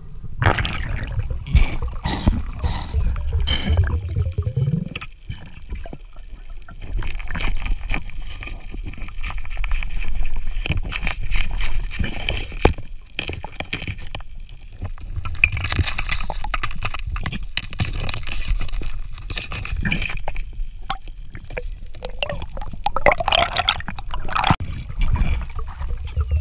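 Underwater sound picked up by the camera: muffled, rumbling water movement with gurgling, scattered clicks and knocks, and bursts of hiss in the middle and again near the end.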